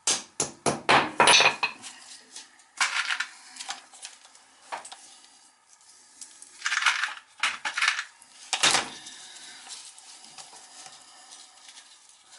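Hammer striking metal fasteners to pin a coated copper oil line against a concrete-block wall: a quick run of sharp metallic blows in the first two seconds, then single blows and short clusters, stopping about three quarters of the way through.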